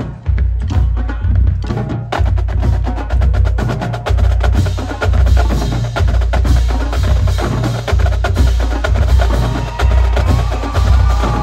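Marching drumline playing a loud, busy rhythmic pattern: crisp snare and stick clicks over deep bass drum hits, filling out about two seconds in.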